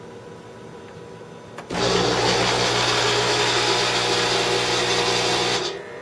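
Keurig single-cup coffee maker starting its brew cycle: about two seconds in, its pump comes on with a loud, steady electric hum over a rushing noise, runs for about four seconds, then drops off shortly before the end.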